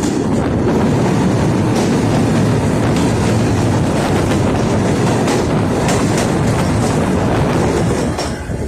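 A GE U20 diesel-electric locomotive and its passenger train running past, the engine loud and steady, with a few sharp clicks of wheels over the rails.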